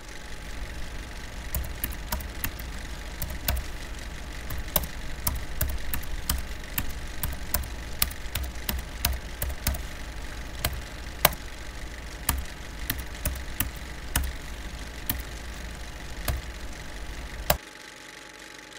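Typing sound effect: irregular keystroke clicks, a few a second, over a steady low mechanical rumble. Both stop together near the end, just after a last loud click.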